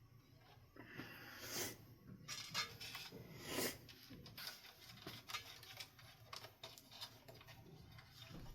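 Faint clicking, tapping and rustling of hands working on a ceiling fan's parts at its mount, with a few louder brief scraping swishes in the first few seconds.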